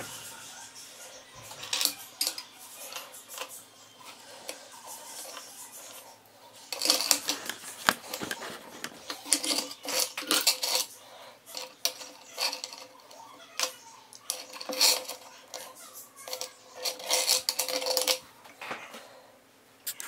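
Sterling silver Bismarck-link chain bracelet clinking and rattling against itself and the bench as it is handled, with small metal clicks of its box clasp. The sound is sparse at first, then comes in dense runs of clinks from about a third of the way in until near the end.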